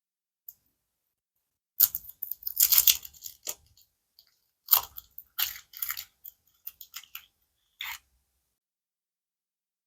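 Packaging wrapper crinkling and crackling as it is handled and opened, in two runs of sharp crackles: the first starting about two seconds in, the second near the middle and stopping about eight seconds in.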